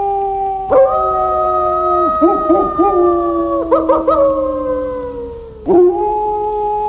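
Wolves howling in chorus: several long howls at different pitches overlap and slowly fall, with short wavering yips breaking in around the middle. Fresh howls start about a second in and near the end.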